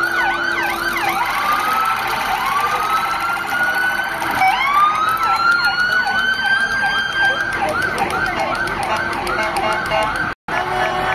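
Several sirens sounding at once on passing army armored trucks: a fast up-and-down yelp overlapping slow rising wails that climb and level off. The sound cuts out for a moment near the end.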